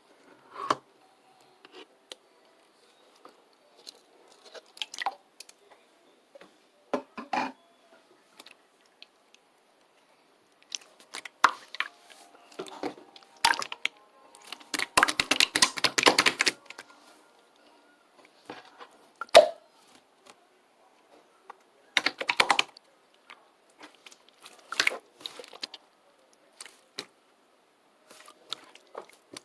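Scattered short taps and clicks of small objects being handled at close range, irregular and with quiet gaps, with a longer noisy stretch of handling about halfway through.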